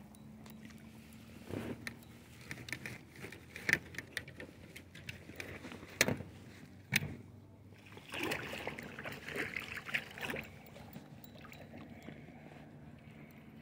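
Gear being handled aboard a small inflatable fishing boat: scattered sharp clicks and knocks, with short bursts of rustling as the landing net is brought out.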